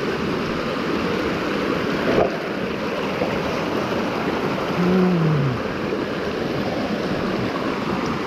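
Shallow mountain stream rushing steadily over rocks and stones. There is a brief knock about two seconds in, and a short, low, falling vocal hum about five seconds in.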